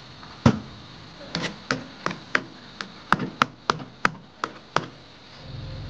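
Metal spoon knocking against the side of a metal wok while stirring thick mango jam: a string of about a dozen sharp clicks, roughly three a second, the first the loudest.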